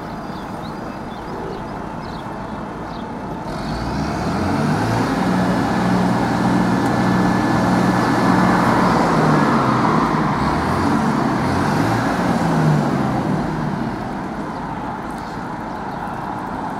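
A motor vehicle's engine note rises about four seconds in, holds steady as the loudest sound for several seconds, then falls away a few seconds before the end, over steady traffic and street noise.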